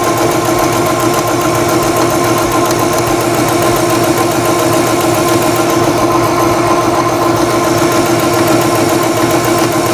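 Electric sewing machine running a straight stitch through fabric at a steady speed: an even motor hum with rapid, regular needle strokes.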